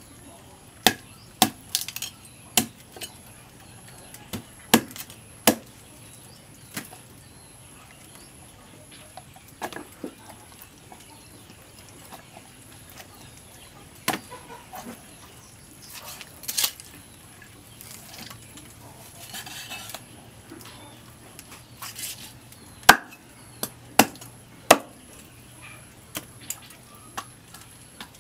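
Cleaver chopping a raw chicken on a thick wooden chopping block: sharp, irregular knocks of the blade hitting the wood, in short runs with pauses between.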